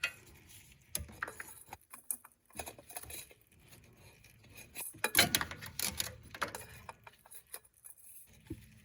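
Irregular metallic clinks and scrapes of hands working a new spin-on oil filter onto a John Deere 6300 tractor engine, with a busier, louder run of clinks a little past the middle.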